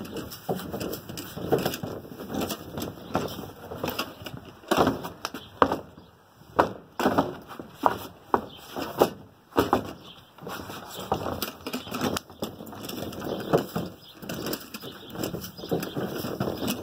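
Drum of hot dirt and melted wax being rolled across wooden deck boards to mix it: a rumbling roll broken by irregular knocks as it bumps along, the loudest knocks bunched in the middle.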